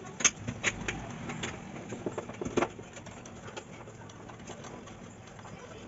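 Hand screwdriver turning screws through a wall-mounting bracket into a tiled wall: a handful of sharp clicks and creaks in the first three seconds, then quieter working sounds.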